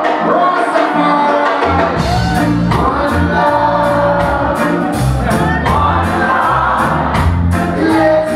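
Live reggae band playing with a lead singer and backing vocals, recorded from among the audience. The bass and drums drop out for the first second or two, leaving the voices, then come back in with a steady beat.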